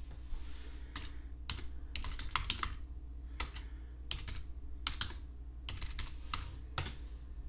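Typing on a computer keyboard: irregular keystroke clicks, some in quick runs, as a search term is entered.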